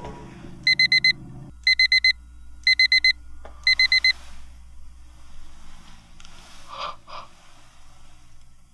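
Digital alarm beeping in four groups of four quick high beeps, about one group a second. Background music underneath ends about a second and a half in.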